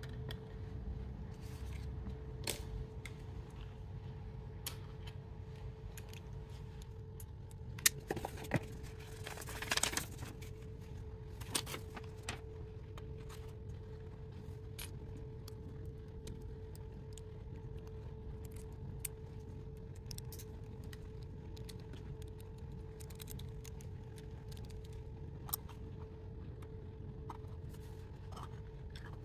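Hard plastic pieces of a 3D crystal jigsaw puzzle clicking and clacking as they are handled and fitted together: scattered light clicks, busier for a few seconds about a third of the way in. A steady faint hum runs underneath.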